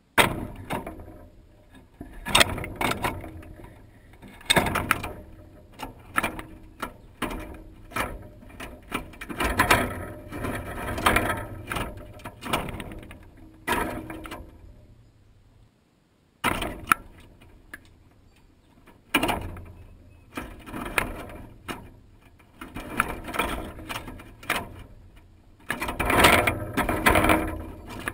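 Blue jays landing on a wire-mesh feeder and tugging whole in-shell peanuts out of it. The peanuts click and rattle against the wire in irregular bursts, with a short lull about halfway through.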